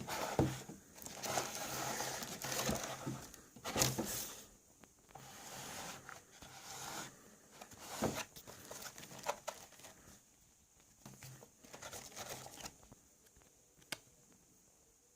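Shaver packaging being handled and unpacked: irregular rustling and crinkling of plastic and cardboard with sharp taps and clicks. It thins out over the second half and stops near the end, apart from one last click.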